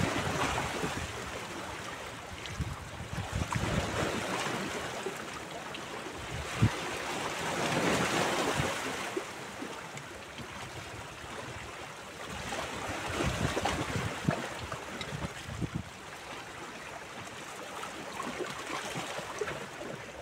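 Small sea waves washing and splashing against shoreline rocks, swelling and easing every few seconds, with wind rumbling on the microphone. There is a single sharp knock about six and a half seconds in.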